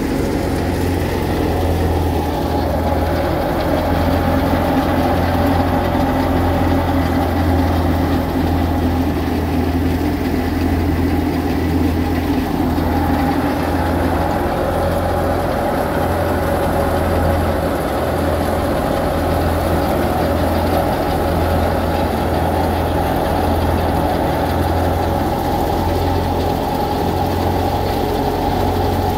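Belt-driven wheat thresher running steadily while wheat straw is fed in, over the steady low hum of the engine driving it.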